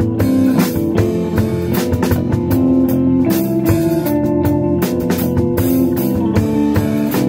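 Live instrumental rock band playing: electric guitar, bass guitar and drum kit, with held guitar notes shifting in pitch every second or so over steady drum and cymbal hits.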